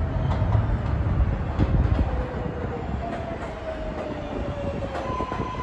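An R188 subway train approaching along an elevated steel structure: a low rumble of wheels on the rails with scattered clicks, and a whine that slowly falls in pitch. A steady high tone comes in near the end.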